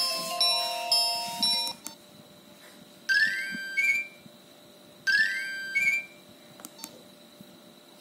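Nokia 1608 built-in ringtones previewed from the phone's speaker. A repeating multi-note clock alert tone cuts off about two seconds in; then a short message alert of quick rising notes plays twice, about three and five seconds in.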